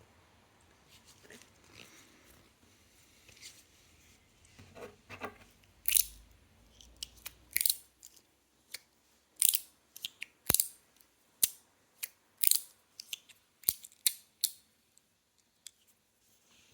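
A TIER I Guandan Mini Slider, a small magnet-held metal fidget slider, handled with faint rustling, then about a dozen sharp clicks and snaps spread over some eight seconds as its parts are slid, clicked together and pulled apart.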